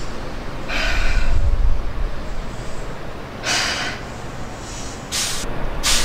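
Keihan 6000 series electric train rumbling low beside the platform, with four short hisses of released air from its brake equipment, about a second in, midway, and twice near the end, the third the sharpest.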